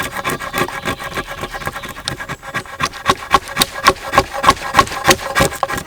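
Old Peugeot Frères cast-steel drawknife scraping bark off a wooden pole in quick, repeated strokes, about three a second.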